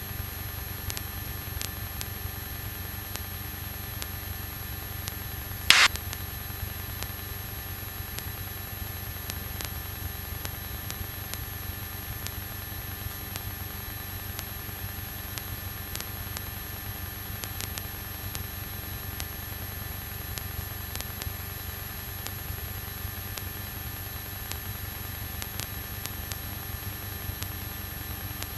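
Steady cockpit drone of a light piston aircraft's engine and propeller in flight, a low hum with hiss behind it. A single sharp click about six seconds in.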